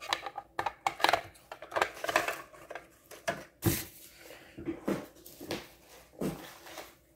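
Light plastic clicks and taps of an HO scale model shipping container being handled and seated onto a plastic model well car: a quick run of small clicks, then a few separate taps.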